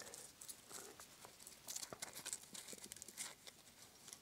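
Faint rustles and scattered light ticks of hands handling a set of feeler gauges and small metal parts.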